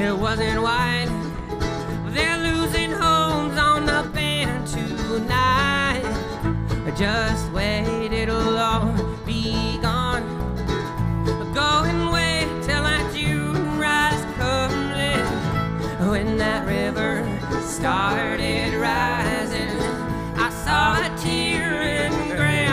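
Live bluegrass-style string band playing an instrumental break: strummed acoustic guitar and banjo under a melody line that bends and wavers in pitch, over a steady bass pulse.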